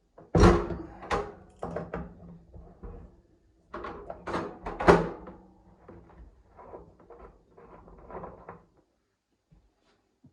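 A series of knocks and clatters of hard objects being handled during a tap repair. The loudest come about half a second in and around five seconds in, and lighter ones fade out after about nine seconds.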